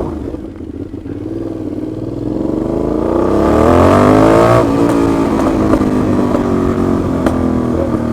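Aprilia Shiver 750's V-twin motorcycle engine revving up, its pitch climbing for about two and a half seconds, then dropping sharply about halfway through as the throttle closes, and running on steadily at lower revs. The exhaust is very loud, which the rider puts down to play between the silencer and the catalytic converter.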